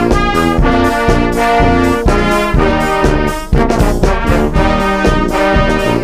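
Background music led by brass instruments, trumpets and trombones playing held notes over a steady beat.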